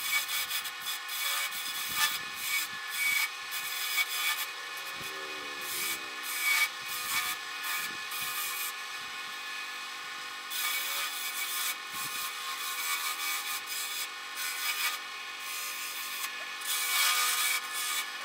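Wood lathe running with a steady motor hum while a hand chisel scrapes and cuts along the spinning wooden hammer handle. The scraping comes in strokes and stops for a moment about halfway through as the tool is lifted off the wood.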